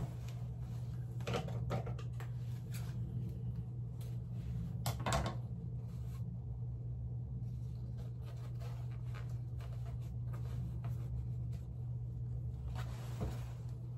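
Small clicks and knocks of objects being handled, with the clearest about a second and a half in and around five seconds in, over a steady low hum.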